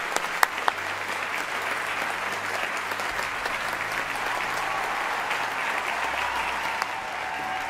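Large audience applauding, a dense steady clapping, with a few sharp single claps standing out in the first second.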